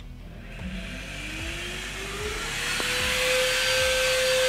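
Electric vacuum-cleaner blower, rigged to suck on a car's exhaust pipe and powered through a power inverter, spinning up after being switched on. Its whine rises in pitch for about two seconds and then holds steady, with a growing rush of air.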